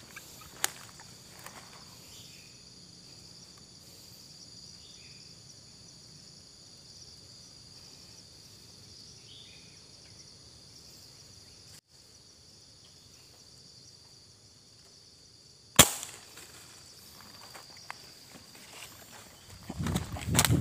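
A single air rifle shot, one sharp crack about three-quarters of the way through, over a faint steady high insect buzz. Rustling and movement sounds follow near the end.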